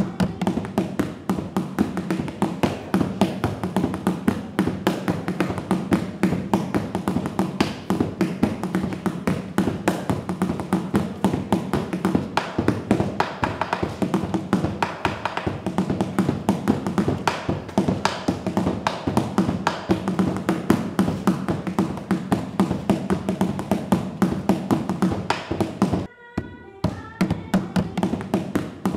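Music with a fast, steady tapping percussion beat over a low sustained tone. It breaks off for about a second near the end, leaving a few held notes, then the beat resumes.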